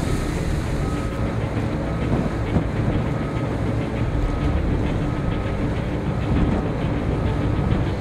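Steady low rumble of a small cruise ship's engines, with wind on the microphone, as the vessel pulls away from the dock. A faint short beep repeats about once a second.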